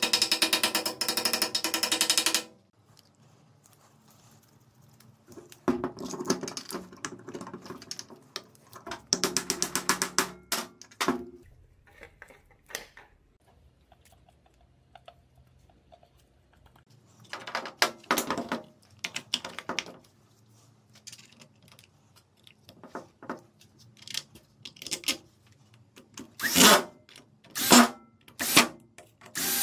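Mechanical workshop sounds from tools and drill-hammer parts. There is a loud burst of fast, even clicking at the start, and shorter clicking bursts come about six, nine and eighteen seconds in. Several separate knocks follow near the end.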